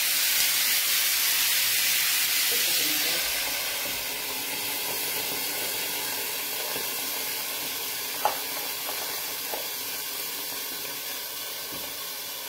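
Salmon steak sizzling in a hot griddle pan just doused with white wine: a loud hiss of the wine boiling off. After about three seconds it eases to a steadier, quieter sizzle under the glass lid. A sharp click comes about eight seconds in.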